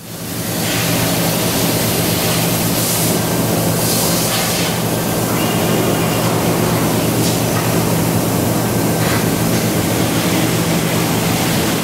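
Amada LASMAC laser cutting machine running as it cuts aluminium sheet: a steady, loud hiss over a constant low machine hum.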